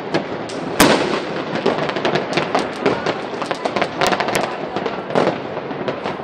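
Fireworks and firecrackers going off in rapid succession, a dense run of sharp bangs and crackles with one louder bang about a second in.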